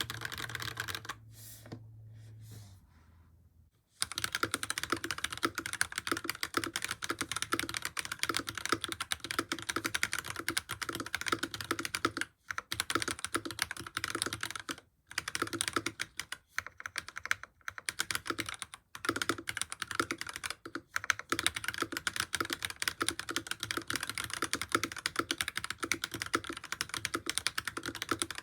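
Fast typing on a modded FL Esports CMMK MK870 mechanical keyboard fitted with Akko switches: a dense, steady stream of keystroke clacks with a few brief pauses. The first few seconds are quieter, with a low hum that stops, and the typing starts about four seconds in.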